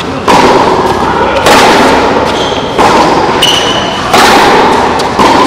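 Tennis balls struck by rackets in a baseline rally, five hits about a second and a quarter apart, each ringing on with a long echo under the covered court's roof.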